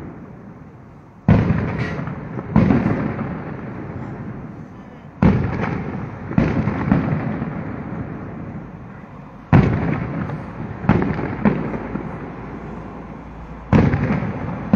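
Aerial firework shells bursting: about ten sharp bangs, some in quick pairs, each followed by a long echoing rumble that fades over a couple of seconds.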